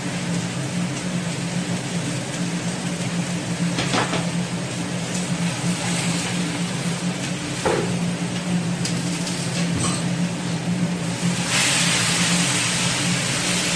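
Stir-frying cabbage in a wok, over a steady low kitchen hum. A wooden spatula knocks against the wok a few times. Near the end a louder sizzle sets in as the vegetables are tossed with the sacha sauce.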